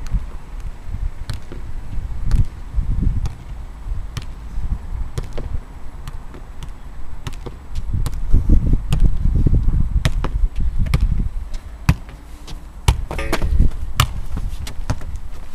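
A football being juggled: irregular sharp taps of boot and knee on the ball, with wind rumbling on the microphone.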